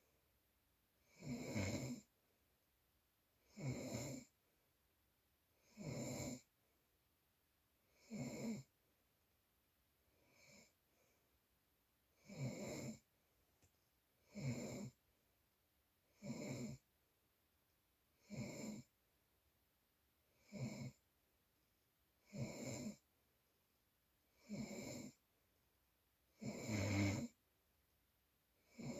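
Rhythmic snoring, one snore about every two seconds, with one much fainter breath about a third of the way through.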